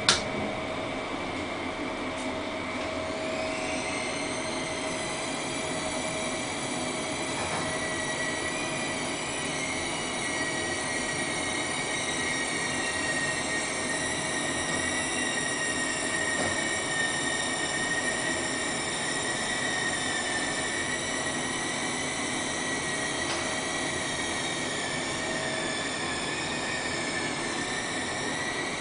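Gylet hydraulic elevator travelling down, its drive giving a steady whine of several high tones that drift slowly in pitch, with more high tones gliding up about three seconds in. There is a sharp click right at the start.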